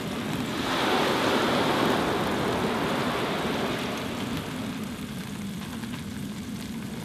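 Waves washing over a shingle beach: a hissing rush that swells about a second in and slowly fades.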